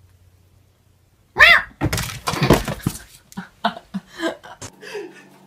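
A sudden loud crash and clatter, like things falling and breaking, with a short high cry at its start, followed by a run of scattered knocks.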